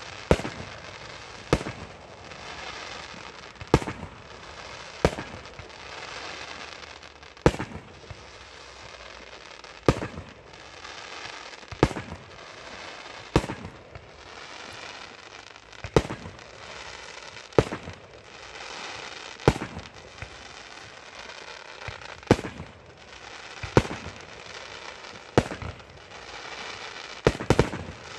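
Consumer fireworks going off: a sharp bang every one and a half to two and a half seconds, with crackling and fizzing between the shots, and two bangs in quick succession near the end.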